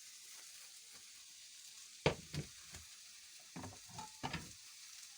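Kitchen utensils knocking and clattering about six times over a steady faint hiss, the first knock the loudest.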